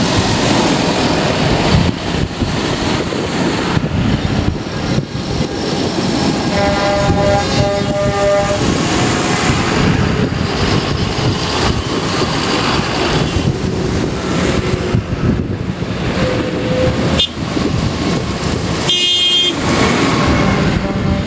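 A line of large farm tractors (Fendt, John Deere and New Holland) driving past one after another, their diesel engines running under load with tyre noise on the lane. A horn sounds for about two seconds roughly a third of the way in, and a shorter, higher-pitched horn blast comes near the end.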